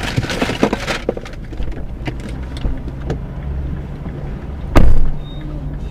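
Inside a stationary car, a steady low engine hum, with rustling in the first second, a few light clicks, and one loud short thump near the end.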